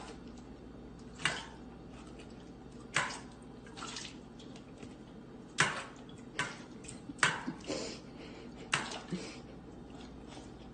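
Water splashing in short irregular bursts, about eight over the stretch, each sudden with a short tail.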